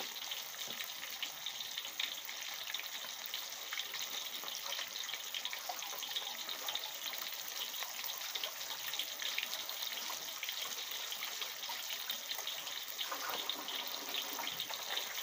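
Whole barramundi deep-frying in hot oil in a steel wok: a steady sizzle full of fine crackling and spitting.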